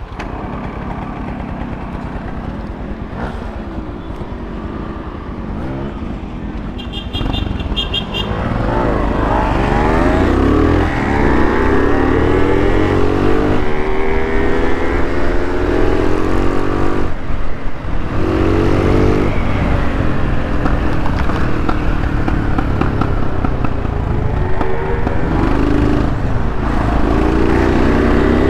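Yamaha RX 135's single-cylinder two-stroke engine accelerating hard, its pitch rising again and again as it winds up through the gears, with short drops at the gear changes. It gets louder about eight seconds in.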